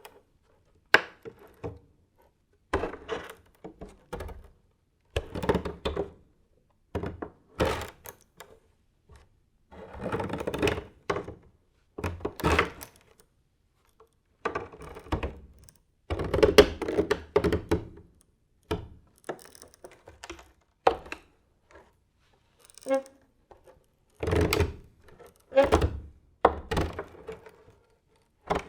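Creaking wooden floorboards under slow, sneaking barefoot steps. There are separate creaks and soft thuds every second or two, with silence between them.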